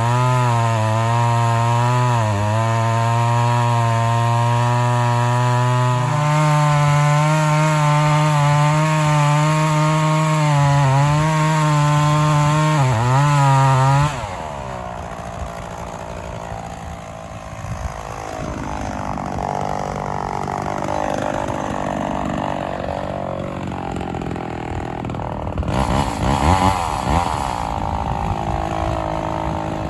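Homelite XL-400 two-stroke chainsaw running at full throttle and cutting into oak, its pitch dipping now and then as it bogs under load. About halfway through, the sound drops abruptly to a quieter, uneven, wavering engine sound.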